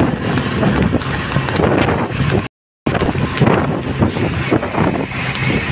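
Wind buffeting the microphone over the steady drone of a loaded cargo truck's engine and tyres at road speed, heard from just behind the truck. The sound cuts out completely for a moment about halfway through.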